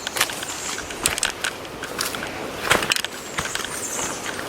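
Footsteps crunching on a dry jungle trail: a string of irregular crunches and crackles.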